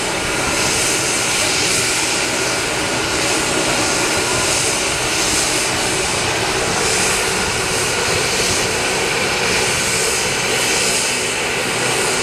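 AgustaWestland AW139 medevac helicopter running on the ground, rotors turning: a steady, loud turbine and rotor noise, the engines kept running while a patient is loaded in a hot load.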